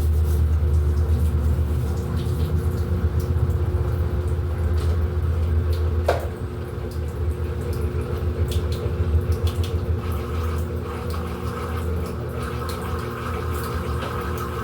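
Electrolux 14 kg washing machine running on its quick programme: a steady low motor hum with water moving inside the drum. About six seconds in the sound changes with a click and drops a little, and a higher steady tone joins near the ten-second mark.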